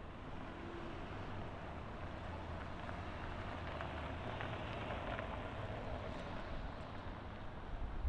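Street traffic passing through an intersection: a pickup truck drives by, its tyre and engine noise swelling in the middle and fading again, over a low rumble of wind on the microphone.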